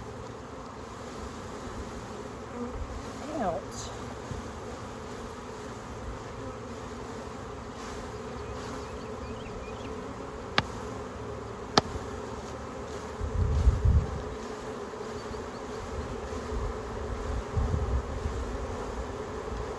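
A mass of package honeybees buzzing steadily as they are shaken out of their shipping package into a new hive. Two sharp clicks come a little past the middle, and a burst of low thumps follows soon after.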